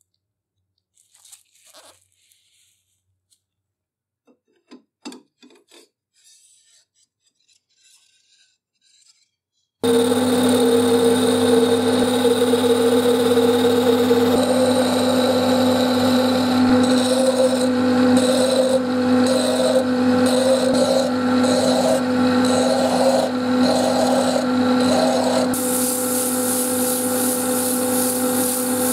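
Faint handling clicks, then a metal lathe starts abruptly and spins a wooden handle blank: a steady motor hum with a cutting tool scraping the wood, in regular strokes about once a second for a while. From about 25 seconds in, sandpaper held against the spinning handle adds a louder hiss.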